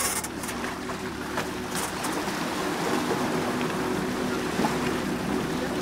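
An engine idling, a steady low drone that holds one pitch.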